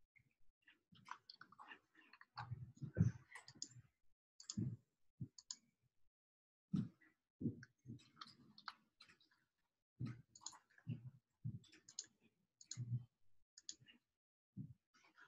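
Faint computer keyboard typing and mouse clicks: irregular keystrokes in short runs with brief pauses, as text is entered into form fields.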